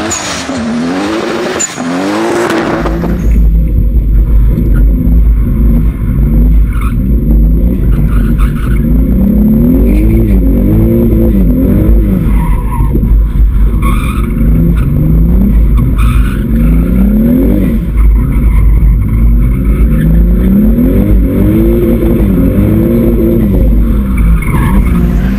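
2JZ straight-six engine in a Nissan 200SX revving hard, its pitch rising and falling again and again as the car drifts. For the first few seconds tyres skid, heard from outside the car. From about three seconds in it is heard from inside the cabin under a heavy low rumble.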